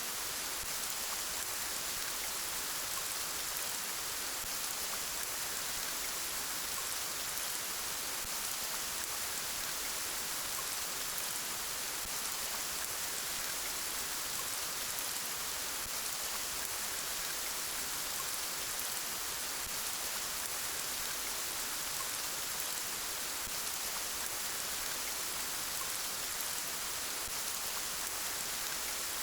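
Gentle rain falling steadily, an even hiss of drops that neither builds nor fades.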